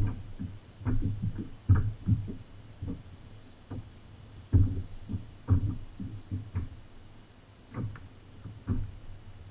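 Small waves slapping against the hull of a Native Watercraft Slayer Propel 10 kayak: irregular low thumps, roughly one a second, over a faint steady hiss.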